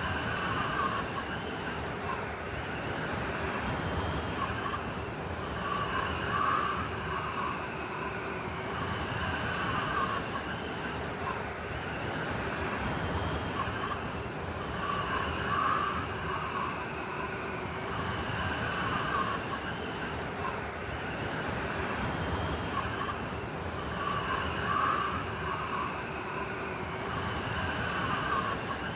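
Blizzard wind blowing steadily, with a whistling tone that swells and fades every few seconds.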